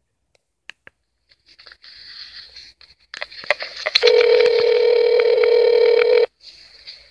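Telephone call on speakerphone: a few clicks and line hiss, then the ringback tone plays loud and steady for about two seconds and stops abruptly, meaning the called number is ringing and has not yet been answered.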